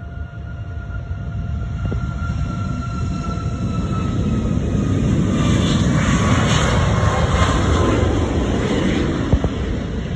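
Twin turbofan jet engines of a Boeing 737 at takeoff thrust on the takeoff roll: a rumble that builds and is loudest from about five to nine seconds in, with thin engine whine tones that sag slightly in pitch.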